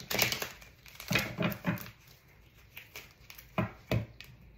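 Tarot cards handled by hand: a handful of short, separate rustles and soft slaps as the deck is shuffled and cards are laid down on the table.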